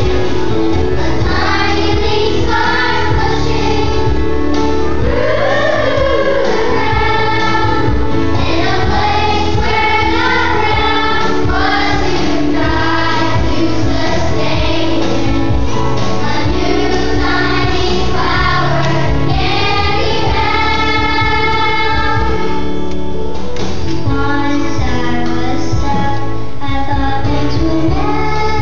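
A group of young girls singing a song together into microphones, over a steady instrumental accompaniment.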